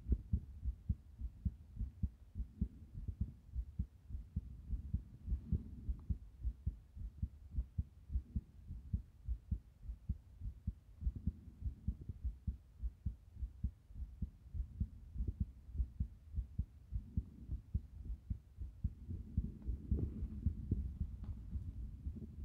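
Heartbeat picked up through the chest: a fast run of short, low thumps in uneven succession, a heartbeat the uploader calls irregular. A few stretches of soft low rushing noise come through, around 5 s in, around 11 s in and around 20 s in.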